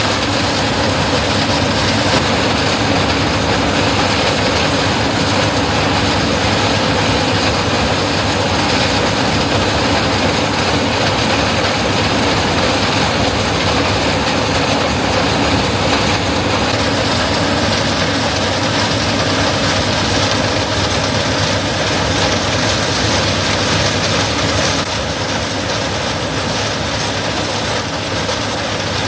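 Combine harvester running steadily in the corn, a heavy engine drone mixed with a constant clattering rattle of its machinery. It gets slightly quieter about four seconds before the end.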